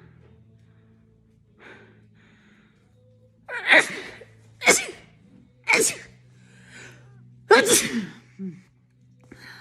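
A woman sneezing four times in quick succession, the first three about a second apart and the last after a slightly longer pause, with faint breaths drawn in between.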